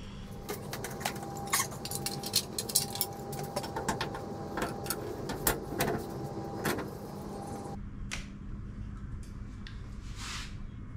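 A rapid, irregular series of light metallic clicks and clinks as steel crane parts are handled, stopping about eight seconds in, followed by one short scrape near the end.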